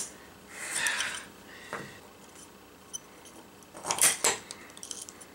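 Small metal parts of a Microtech Combat Troodon out-the-front knife clicking and scraping as the spring and internals are fitted into the handle: a soft rustle about a second in, light ticks, then a louder pair of sharp clicks about four seconds in.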